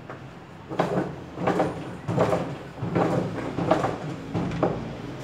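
A long metal bar standing in the drum of a Samsung WA85U3 top-loading washing machine is knocked six times, one short bang about every three-quarters of a second, to work loose a stuck fitting at the bottom of the tub.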